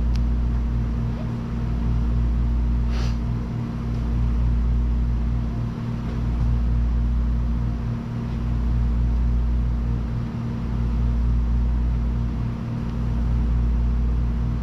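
Steady low machine hum and rumble that swells and dips regularly about every two seconds, with one short click about three seconds in.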